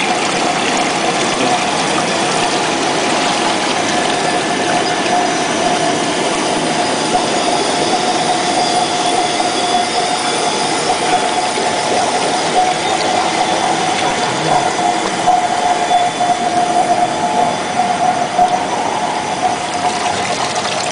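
Polystyrene picture-frame profile extrusion line running: a steady industrial machinery noise with a constant whine over a broad hiss.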